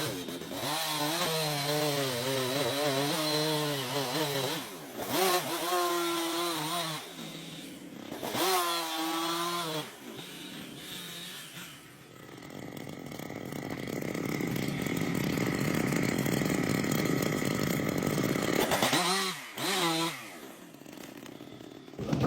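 Chainsaw running and revving up and down as it cuts timber, its pitch wavering. About halfway through, the revving gives way to several seconds of even, rushing noise that slowly grows louder, and the saw revs briefly again near the end.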